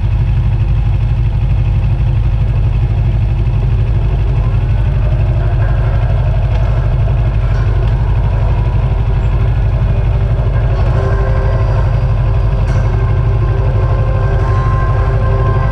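Motorbike engine idling steadily with a low, even throb, with street traffic around it.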